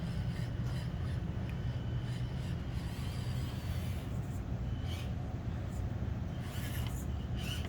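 Small stock Axial SCX24 Deadbolt RC crawler driving slowly over a course, its electric motor and gears giving a steady low hum with faint ticks.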